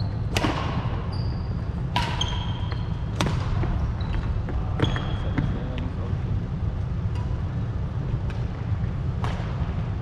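Badminton rackets striking a shuttlecock in a singles rally: about four sharp smacks in the first five seconds, echoing in a large hall, with short shoe squeaks on the wooden court. After a pause of a few seconds, one more hit comes near the end as play restarts.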